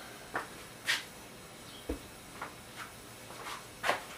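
Scattered handling noises at a workbench: a handful of short, irregular clicks and rustles, with one duller thump about two seconds in.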